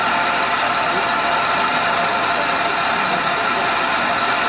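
Steam locomotive 777 Sir Lamiel, a Southern Railway King Arthur class, letting off steam in a loud, steady hiss with a steady whistling note running through it.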